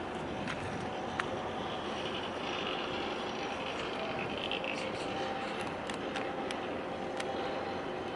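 Steady outdoor background rush, with faint steady hum and a few light clicks.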